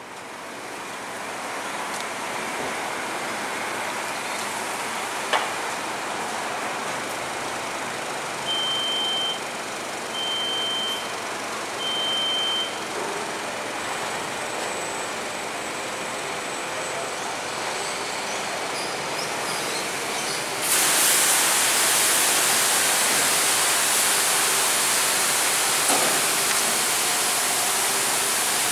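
Automatic car wash bay with a steady machine hum; three short, even beeps sound about a third of the way in. About two-thirds through, the WashTec Combiwash's water jets come on abruptly with a loud, steady spray hiss.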